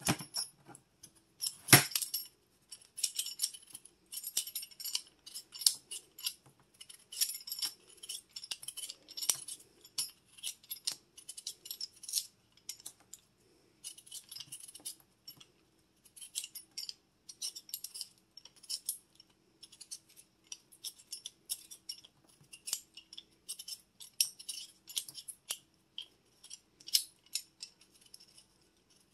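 Vegetable peeler scraping the skin off a russet potato in quick, repeated short strokes, with a sharp knock about two seconds in.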